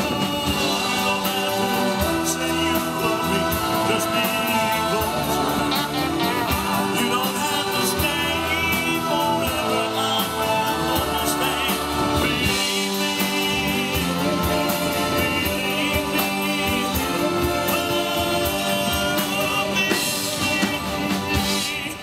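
Live band playing through PA speakers, with singing.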